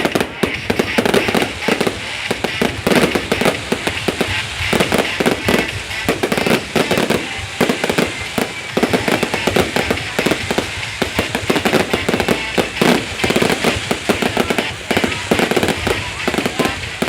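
Fireworks display going off in a rapid, unbroken run of bangs and crackles.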